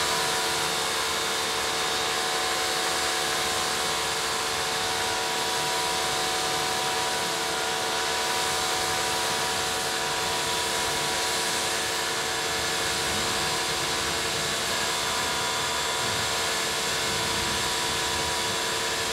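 Pressure washer running steadily, its motor and pump giving a constant whine under the hiss of the wand's water spray as it rinses foam off a truck's tailgate.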